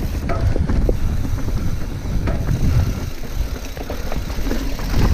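Mountain bike rolling fast down a rocky trail: a steady rumble of tyres and suspension with scattered knocks and rattles as the wheels hit stones, and wind buffeting the camera microphone.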